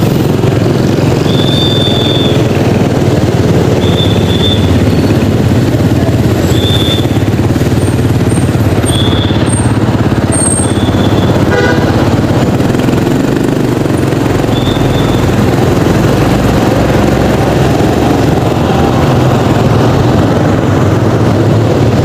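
Motorcycle riding through city traffic: a steady, loud low rumble of engine and road noise, with short high chirps every couple of seconds.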